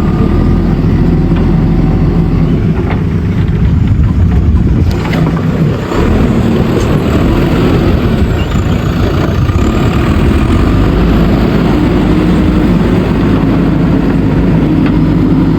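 JCB backhoe loader's diesel engine running steadily, with a brief drop in level about six seconds in.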